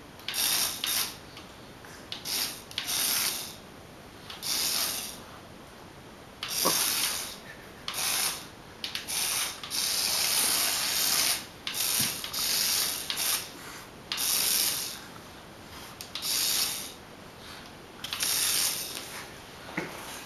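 Toy remote control car's small electric motor and plastic gears whirring in many short start-stop bursts as it is driven back and forth.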